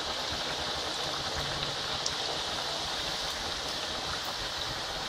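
Mathis (dough crackers) deep-frying in hot oil in a kadhai: a steady sizzle of bubbling oil.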